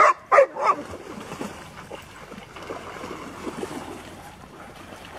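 A dog barks three times in quick succession, then dogs swim through the pond with steady sloshing and splashing of water.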